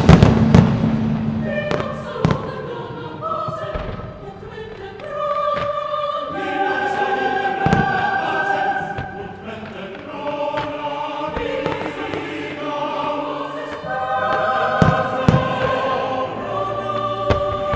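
Choral music with voices holding long chords, accompanying a fireworks display, with firework bursts banging through it; the loudest bangs come right at the start.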